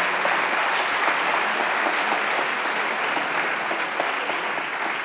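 Audience applauding steadily, dying down a little near the end.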